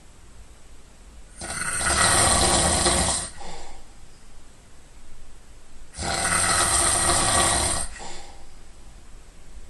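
A person snoring loudly in deep sleep: two long, harsh snoring breaths about four and a half seconds apart, each close to two seconds long and followed by a shorter, softer breath.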